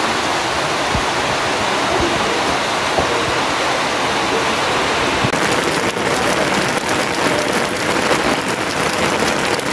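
Steady rain falling, with a denser patter of individual drops coming in about five seconds in.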